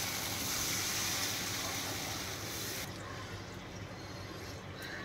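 Water poured from a cup into fried masala paste in hot mustard oil in a kadai, hissing and sizzling. About three seconds in the hiss drops off suddenly to a fainter simmer of the thin fish curry.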